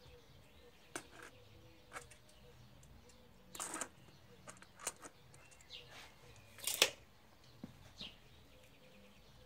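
Scattered faint clicks and handling noises from a retractable steel tape measure and the potted plant. Two short noisy bursts come about four and seven seconds in, the louder one near seven seconds as the tape is reeled back in.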